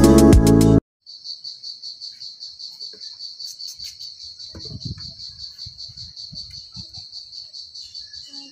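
Electronic intro music cuts off under a second in. Then crickets chirp in an even pulsing trill, about five pulses a second, with faint low noise underneath midway.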